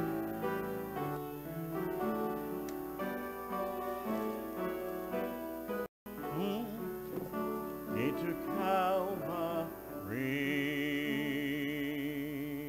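Hymn music with keyboard accompaniment, then a solo voice singing with wide vibrato that ends on a long held note near the end. The sound drops out for an instant about six seconds in.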